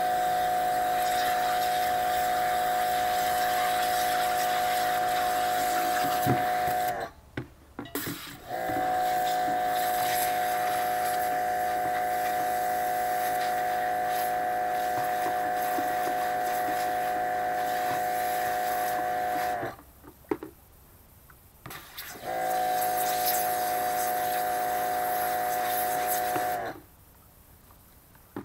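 Pressure washer running with a steady hum and the hiss of its spray, in three long spells of several seconds each, cutting out sharply in between.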